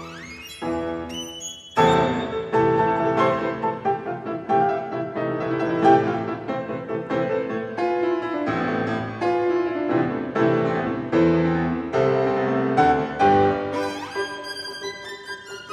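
Violin and concert grand piano playing classical music. The violin climbs in a quick upward run at the start, then the piano carries the music alone through the middle, and the violin comes back in near the end.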